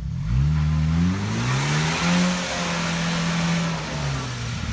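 Off-road 4x4's engine revving hard under load: its pitch climbs in the first second, holds high, then drops near the end, with a loud rushing hiss over it in the middle.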